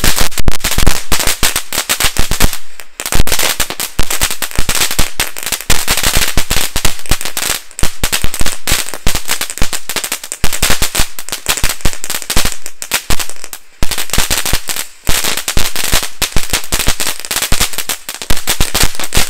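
Consumer firework cake firing a rapid, continuous barrage of shots, several a second, with short lulls about three seconds in and again about fourteen seconds in.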